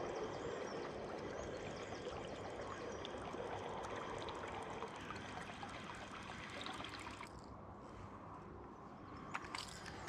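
Chasebaits Smuggler crawler-type topwater lure being retrieved across calm water, a faint steady gurgling and splashing that slowly fades, with a few sharp clicks near the end.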